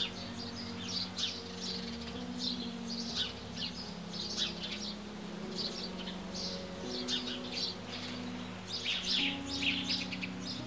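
Many small birds chirping and twittering in quick short calls, busiest near the end. Low sustained tones lie underneath and shift in pitch every couple of seconds.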